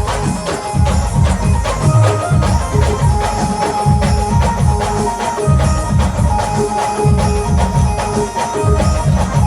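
Brass band playing an instrumental folk tune: fast, heavy drumming with jingling percussion under held horn lines carrying the melody.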